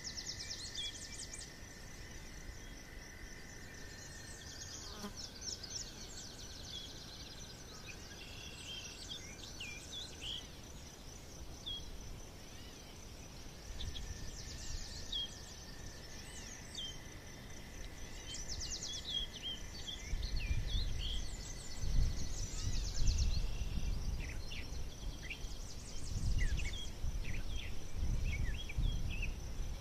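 Forest birds singing in short chirps and trills over a steady, high insect buzz, with a long even drone coming and going twice. A low rumble comes in about two-thirds of the way through and runs to the end.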